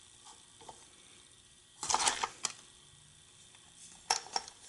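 Light clicks and rattling of hard plastic being handled, in a short cluster about two seconds in, then two sharp clicks a little after four seconds.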